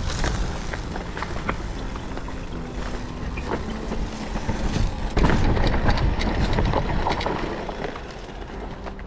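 An electric mountain bike ridden fast along a rocky trail: tyres and frame rattling and knocking over rocks and roots, under a steady rush of wind on the microphone. The noise swells loudest about five seconds in.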